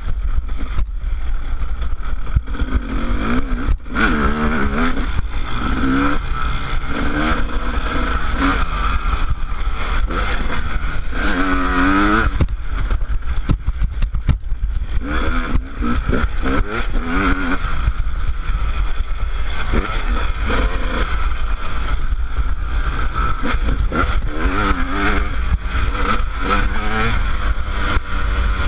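Honda CR250 two-stroke dirt bike engine revving on a trail ride, its pitch climbing and dropping every second or two as the throttle is opened and closed and the gears change.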